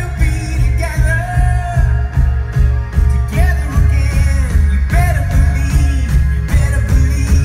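Live rock band: a male lead singer singing into a microphone over electric bass, drums and guitar, played loud through the PA with a heavy bass.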